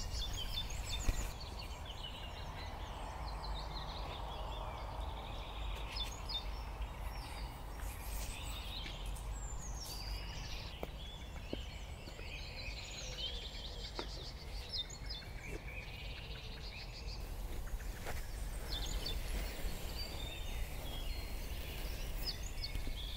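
Woodland birds chirping and calling over a steady low outdoor rumble, with a single knock about a second in and a few faint clicks.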